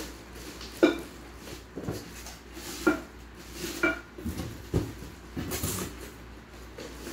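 Glass and metal cookware clinking and knocking as it is handled in its box: about five sharp knocks roughly a second apart, some with a short ring. A brief rustle of plastic wrapping comes about halfway through.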